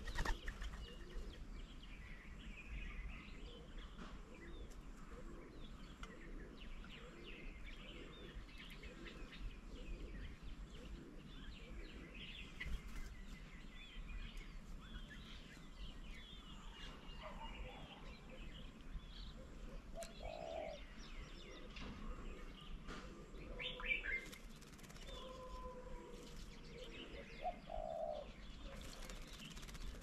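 Birds at a garden feeding table: many short chirps and calls from several small birds, with a few short, lower calls in the second half. A sharp click right at the start.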